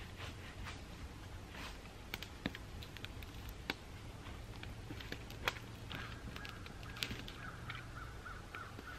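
A wood campfire crackling with scattered sharp pops and snaps, while birds call in the background, with a run of repeated calls in the last few seconds.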